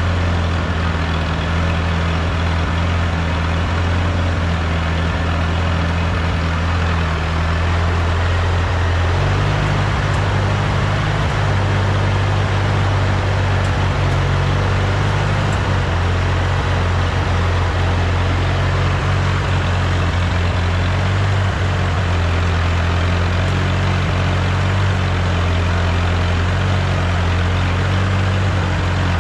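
Rebuilt Ford 8N tractor's four-cylinder flathead engine running steadily, its speed picking up slightly about nine seconds in.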